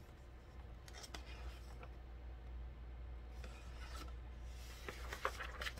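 Faint rubbing and rustling of hands on a hardcover picture book as it is held up and handled, with a few soft taps, over a low steady room hum.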